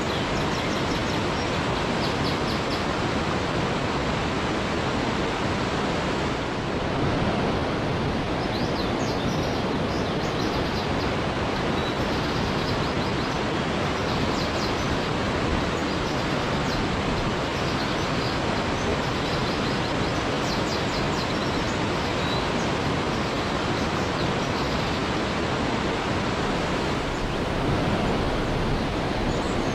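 Waterfall: steady rushing water, with faint short high chirps scattered over it.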